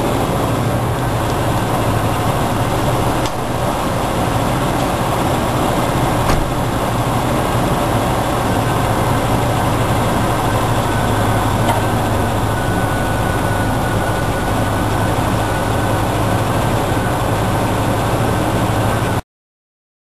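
Range Rover engine idling steadily. A couple of knocks a few seconds in, one of them the driver's door shutting, and a faint high whine joins about two-thirds of the way through.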